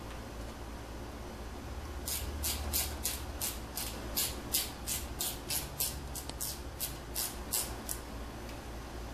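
Screwdriver tightening a hose clamp on a rubber hose fitting. About two seconds in, a run of about twenty short raspy clicks begins, roughly three a second, one per turn of the tool, and it stops a second before the end.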